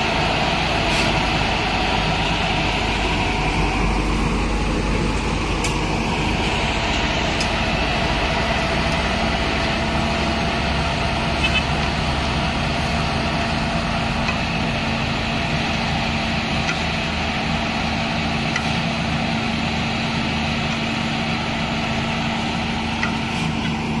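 Asphalt paver's diesel engine running steadily as it lays hot-mix bitumen, with a few light clicks over it.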